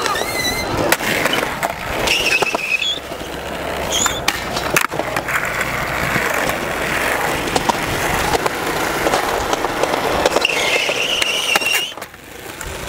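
Skateboard wheels rolling on a concrete skatepark surface, with several sharp clacks and knocks of the board.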